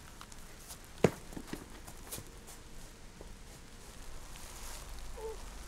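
Rustling and crunching in dry fallen leaves, with scattered light clicks and one sharp snap about a second in.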